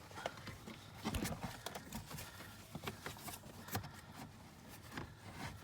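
Irregular light clicks, taps and scrapes of plastic as a cabin air filter is pushed and slid along the channel of its housing behind the glove box.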